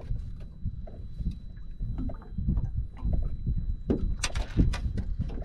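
Water lapping against a small boat's hull under a steady low rumble, with a few sharp knocks and rattles about four seconds in as a caught fish is handled on the bow.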